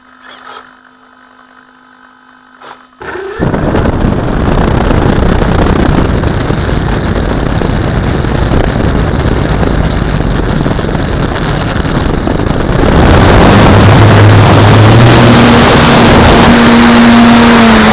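Onboard sound of an Extra 330L radio-control model plane's motor and propeller. A faint steady hum for the first three seconds; then the motor starts up with a loud rushing noise. About 13 s in it grows louder for the takeoff run, and a propeller tone rises in pitch.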